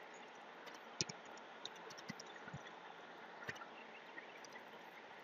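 Faint, irregular clicks of computer keys being typed, the loudest about a second in, over a low steady hiss.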